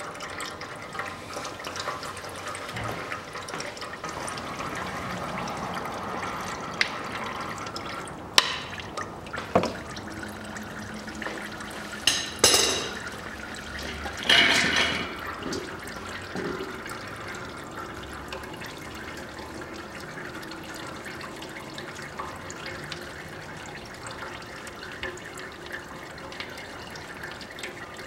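Old automatic transmission fluid from a Kia Sportage's transmission pan draining in a thin stream from the open plug hole into a catch pan, a steady trickling and dripping. A few short knocks and clatters come around the middle.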